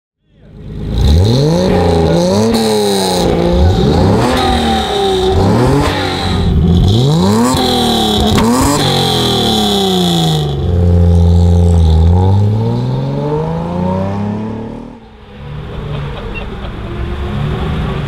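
1955 Mercedes-Benz 300SL Gullwing's fuel-injected straight-six being revved through its exhaust. It starts about a second in and gives a series of quick blips, each rising and falling in pitch, then one longer, slower rev a little after ten seconds, and drops back to idle near the end.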